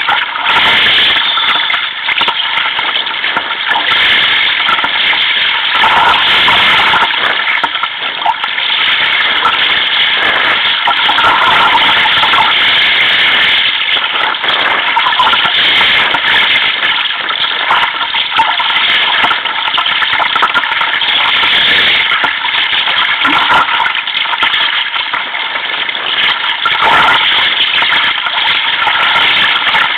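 Loud, steady rushing of wind and choppy sea water, picked up by a camera on a sea kayak's deck.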